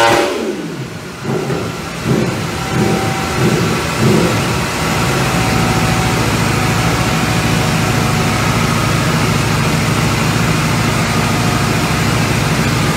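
Aprilia sport bike's engine on a braked roller dynamometer: the revs fall away as the throttle closes at the top of a full-power pull. A few uneven throttle blips follow over the next few seconds, then it runs steadily at low revs.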